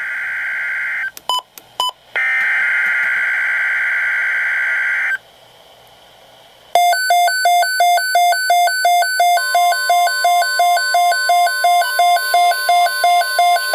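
Emergency Alert System SAME header on NOAA Weather Radio: two bursts of harsh, buzzing digital data tones, the first ending about a second in and the second lasting about three seconds, with a few short clicks between them. After a short pause, an electronic alert beeps rapidly at about three beeps a second, and about halfway through a steady single-pitch tone, the Weather Radio warning alarm tone, joins it.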